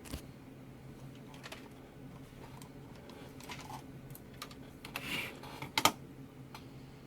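Scattered computer keyboard key presses, with a cluster of louder clicks about five to six seconds in, over the steady low hum of a freshly powered-on desktop PC.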